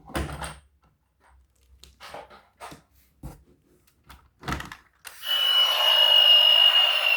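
Light knocks and clatters of plastic toy vehicles and packaging being handled. About five seconds in, a battery-powered toy's small electric motor starts with a sudden, loud, steady whir and a high whine that sinks slightly in pitch.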